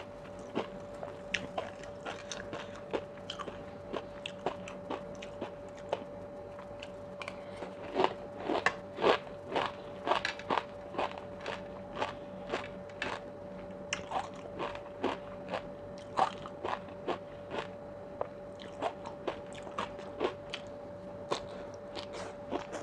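Close-miked chewing of crunchy food, crisp fried shallots and sea grapes popping between the teeth: a steady run of short sharp crunches and pops, thickest about eight to eleven seconds in. A faint steady hum runs underneath.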